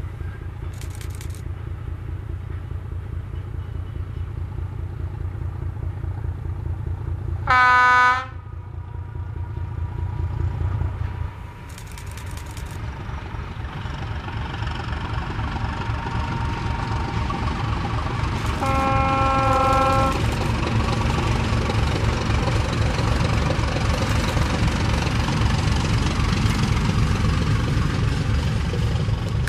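ČSD class 751 diesel locomotive hauling a freight train: its six-cylinder diesel engine runs with a steady low beat, growing louder as it nears. Its horn sounds twice, a short loud blast about eight seconds in and a longer one about nineteen seconds in.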